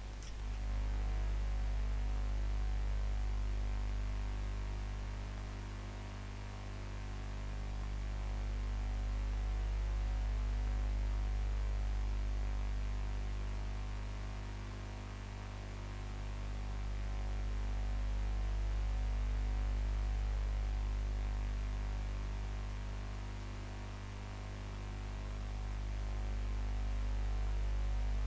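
A steady low hum with several held tones above it, swelling and fading slowly about every nine seconds.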